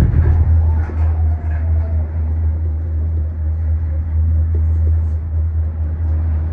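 Steady low rumble of a Disney Skyliner gondola cabin in motion along its cable, heard from inside the cabin, with a faint falling whine about a second in.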